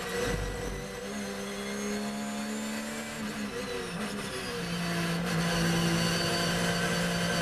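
In-cabin sound of a Porsche 911 GT3 R race car's flat-six engine at speed. Its pitch dips about three to four seconds in as the car slows for a corner, then it runs steady at a lower pitch.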